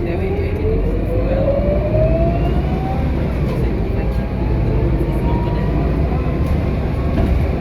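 Scania K230UB city bus's five-cylinder diesel engine pulling away from a stop, heard from inside the cabin: a low rumble with a rising whine that climbs for about three seconds, falls back, and climbs again about five seconds in as the bus accelerates.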